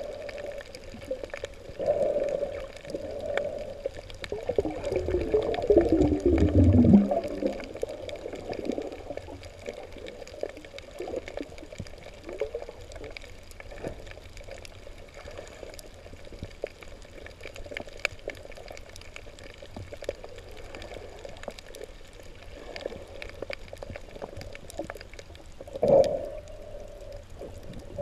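Muffled underwater water noise picked up through a camera's waterproof housing, with irregular gurgling swells. A louder gurgling rush comes about five to seven seconds in, sweeping down in pitch, and there is a short loud burst near the end.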